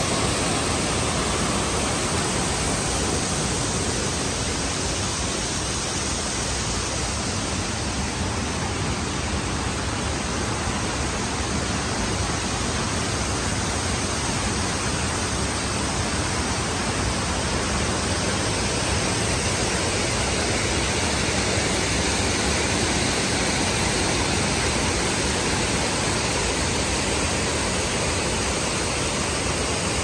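An artificial waterfall, with water falling in sheets over stone-block walls into a pool, making a steady, even rush.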